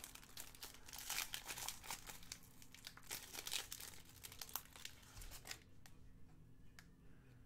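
Foil wrapper of a football card pack being torn open and crinkled in the hands: a dense run of crinkling and tearing that dies away about five and a half seconds in, leaving only a few faint clicks.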